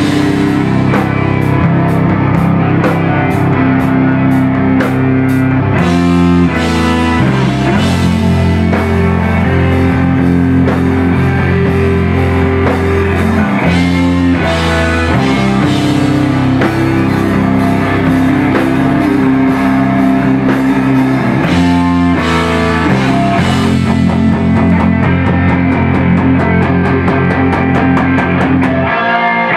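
Live rock band playing loud and instrumental on electric guitar, bass guitar and drum kit. A few brief stops come where the whole band breaks off together and then comes back in.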